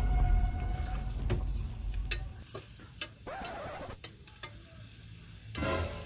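Metal ladle stirring and scraping in a cooking pot, with light sizzling and a few sharp clinks against the pot. A low rumble fills the first second or so.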